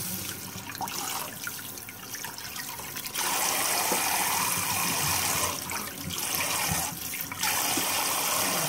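Hand swishing rice grains in water in a stainless steel bowl as the rice is washed. About three seconds in a steady rush of running water starts, dipping briefly twice.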